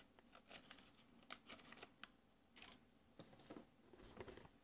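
Faint crinkling and rustling of plastic snack packaging being handled: a string of short, irregular crackles.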